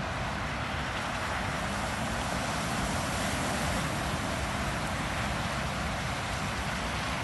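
VW Amarok pickup driving through floodwater, heard from a distance: a steady rush of splashing water over a low engine rumble, with wind on the microphone.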